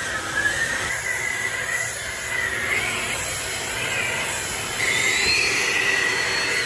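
Battery-electric backpack leaf blowers running, a high-pitched whine over the rush of air, getting louder about five seconds in.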